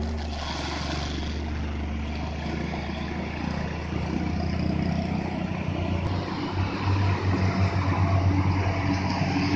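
Diesel engines of Hino trucks passing close by: a steady low engine hum as a loaded cargo truck pulls away, then a tanker truck's engine grows louder and pulsing from about seven seconds in as it passes right by.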